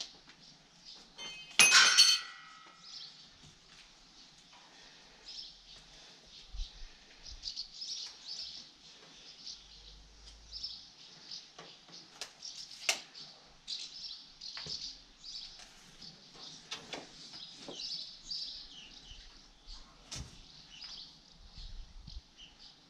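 Small birds chirping steadily in the background. About two seconds in there is a loud, short burst, and later a few sharp clicks stand out.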